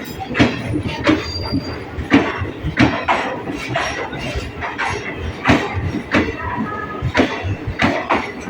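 Passenger coaches of an express train rolling past as it pulls out of a station, their wheels knocking and clicking irregularly over rail joints and points.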